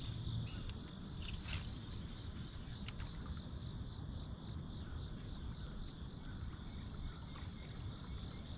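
Steady high-pitched chorus of crickets and other insects, over a low rumble, with a few brief clicks in the first three seconds.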